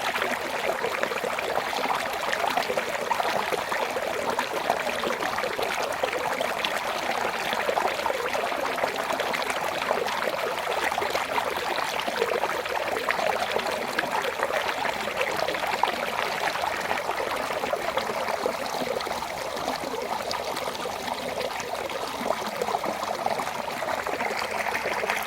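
Small waterfall in a rocky stream: water pouring and splashing steadily over stones, a continuous bubbling rush.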